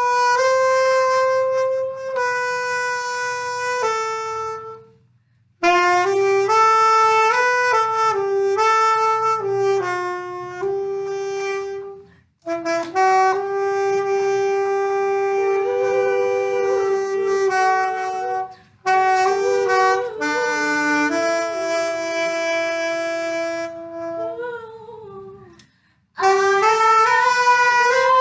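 A solo saxophone plays a slow worship-song melody of long held notes, in phrases broken by short pauses about every six or seven seconds.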